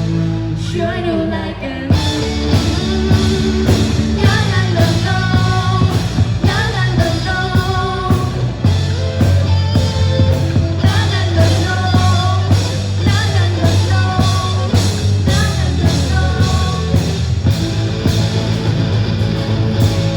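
A song: a singing voice over a band with electric guitar and bass, with a steady beat.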